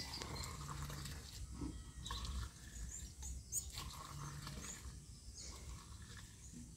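Faint rural outdoor ambience: small birds chirp now and then over a low rumble, with a few short low hums.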